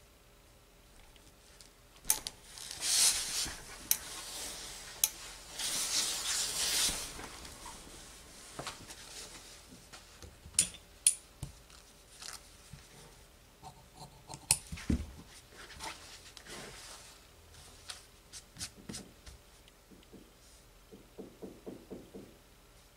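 Fabric rustling as it is handled and folded on a cutting table, then tailor's shears cutting through the cloth, with sharp clicks of the blades and of the shears on the table, and a dull knock about two thirds of the way in.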